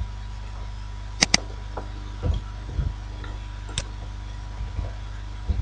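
Scattered clicks of a computer keyboard and mouse during code editing, including a quick double click about a second in, over a low steady hum.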